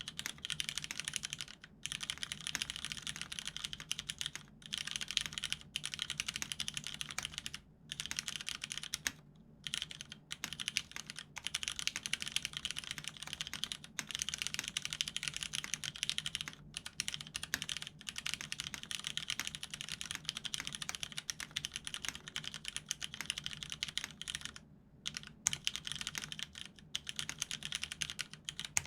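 Steady fast typing on a custom mechanical keyboard with lubed vintage Cherry MX Brown tactile switches on an aluminium plate and Cherry doubleshot-profile dye-sub keycaps, a quick stream of muted key clacks broken by brief pauses between words.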